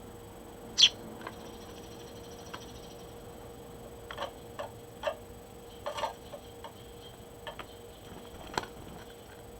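Sparrows pecking and hopping about: irregular light taps and clicks, some in quick clusters, with the sharpest and loudest one about a second in.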